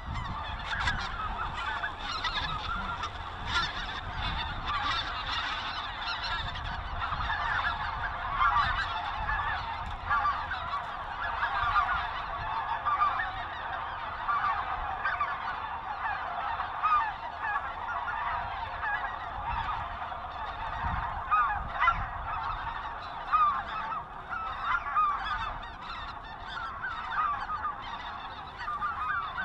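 Many geese honking and calling at once in a dense, unbroken chorus of short, overlapping calls.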